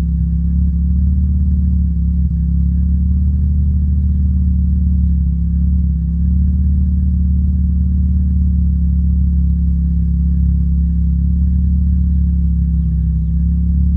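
1987 Mazda RX-7 Turbo II's turbocharged 13B rotary engine idling steadily. It runs on a Megasquirt ECU that randomly loses all signal and cuts out for a split second.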